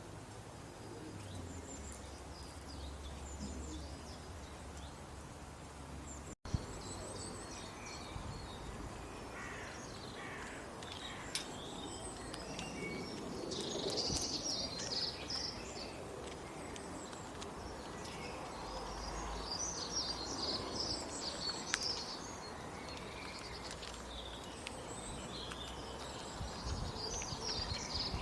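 Small birds chirping and twittering over a steady outdoor background noise, the chirps coming in busy clusters through the second half. A brief dropout about six seconds in.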